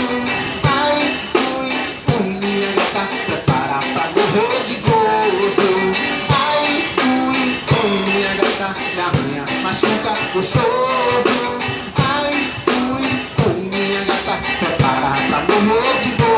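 Music with a drum kit keeping a steady beat under a wavering melody line: an instrumental stretch of a Brazilian bar song.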